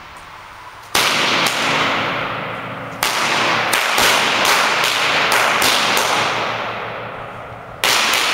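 Panda 'Cracker' firecrackers from a pack of 20 going off. About a dozen sharp bangs come in three bursts: two about a second in, a quick run of about eight between three and six seconds in, and two more near the end. Each bang trails off in a long, fading echo.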